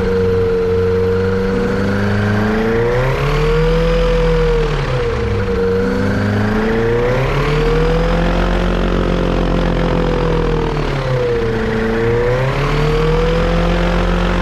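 Yamaha Apex four-cylinder four-stroke engine on a Kitfox airplane running, its speed sagging and recovering several times, once every few seconds. The engine is being checked for a misfire that the owner suspects comes from a vacuum leak.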